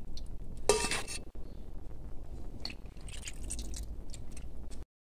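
Metal tongs moving soaked, softened dried red chiles from a pot into a glass blender jar: soft wet handling with light clinks of metal on glass and pot, and one louder brief noise just under a second in.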